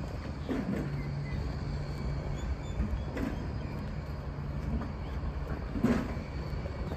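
A steady low mechanical hum, with a few short knocks about every two and a half seconds.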